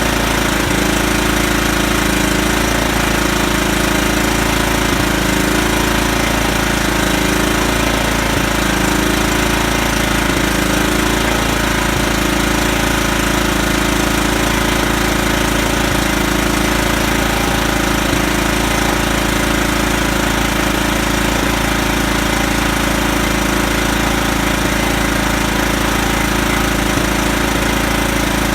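Kohler Command CV14 14 hp single-cylinder engine running steadily on its freshly rebuilt Walbro carburettor.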